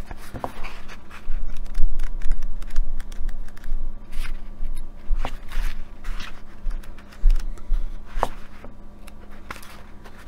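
Pages of a paperback book being leafed through and turned: repeated dry paper rustles and flicks, with soft bumps from handling the book.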